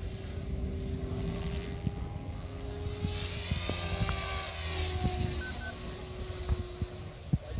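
XL Power Specter 520 RC helicopter in flight: a steady hum of rotor and motor whose pitch drifts slowly as it manoeuvres.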